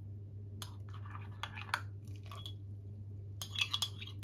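Metal spoon scraping and tapping inside a china teacup as risen, foamy yeast mixture is scooped out into a pot of flour: scattered soft clicks and wet scrapes, busier near the end, over a steady low hum.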